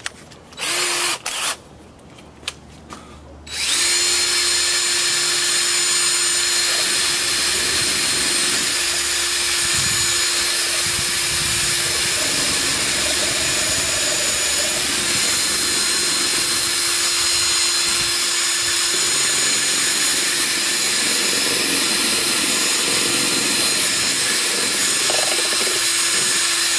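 A power tool's motor runs in a short burst about a second in, then starts again and runs steadily, a high whine over a broad hiss.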